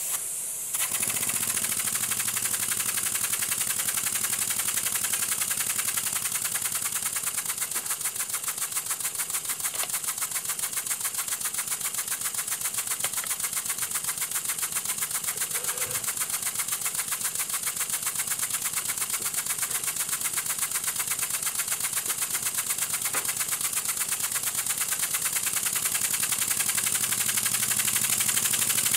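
Small double-acting oscillating-cylinder model steam engine running fast on compressed air: a rapid, even stream of exhaust puffs over a steady air hiss. It picks up about a second in, after a moment of hiss alone, and grows a little louder near the end.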